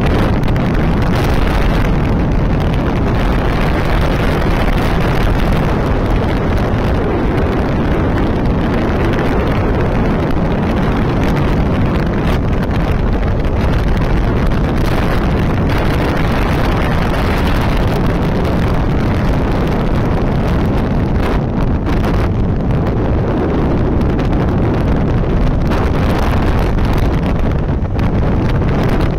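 Hero Honda CBZ 150cc motorcycle riding at steady speed, heard mostly as loud, steady wind rushing over the helmet-mounted microphone.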